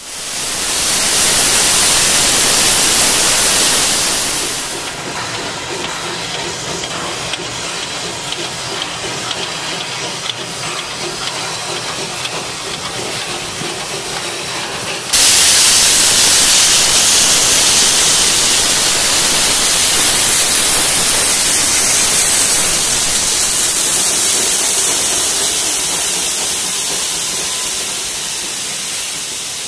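Steam locomotives hissing steam as a double-headed train rolls past. The hiss drops back after a few seconds, jumps abruptly louder about halfway through with a thin high steady whine in it, then slowly fades near the end.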